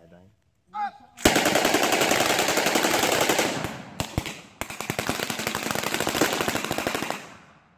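Small-arms fire from a line of soldiers shooting together: dense, rapid, overlapping shots for about two and a half seconds. Then a short lull with a couple of single shots, and a second stretch of rapid fire that dies away shortly before the end. A short shout comes just before the firing starts.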